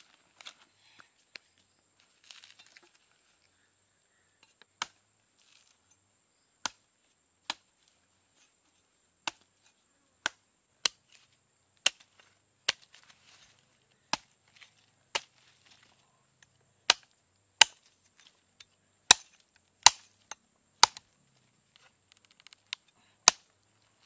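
Large knife chopping into the fibrous husk of a green coconut: about twenty sharp single chops. They come a few seconds apart at first, then faster and loudest past the middle.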